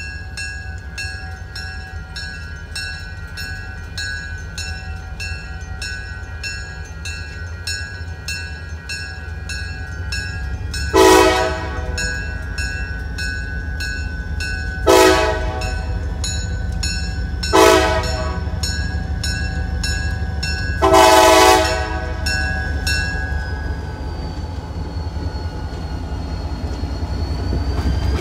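Wheeling & Lake Erie diesel locomotive sounding its horn for a grade crossing: four blasts, the first and last longer than the two short ones between them. Under it the crossing signal bell rings steadily at about two strokes a second, and the low rumble of the locomotive grows as it nears, with a thin wavering squeal near the end.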